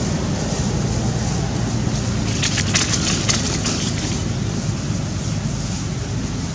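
Wind rumbling on the microphone, with a brief crackling of dry leaves from about two seconds in, lasting a second or so, as monkeys handle the leaf litter.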